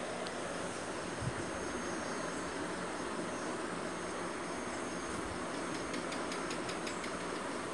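Insects chirping in a fast, even pulse over a steady background hiss, with a brief cluster of light ticks about six to seven seconds in.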